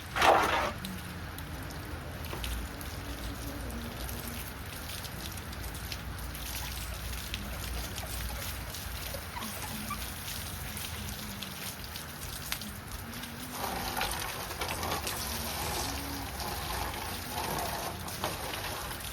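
Steady rain falling, an even hiss of patter. A brief, loud noise comes right at the start.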